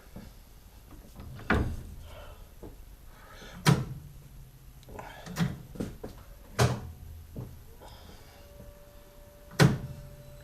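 A series of about five sharp knocks and clunks a second or two apart, from metal parts and tools being handled and set down in a workshop.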